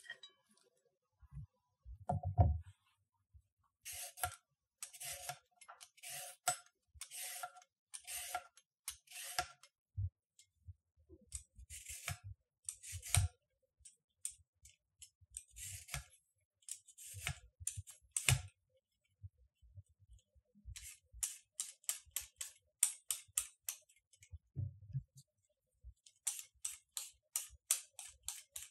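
Carrots being peeled with a vegetable peeler on a wooden cutting board: a run of short scraping strokes, spaced out at first and quickening to about four a second near the end. A single heavier thump about two seconds in.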